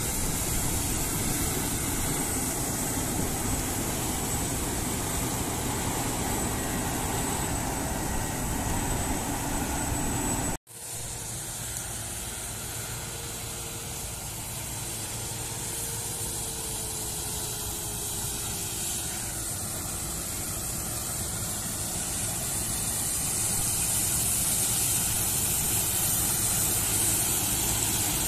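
Claas Lexion combine harvester running steadily while cutting and threshing rapeseed, a dense even mechanical noise with a thin high whine. The sound cuts off abruptly about ten seconds in, comes back quieter, and grows louder toward the end as a combine comes closer.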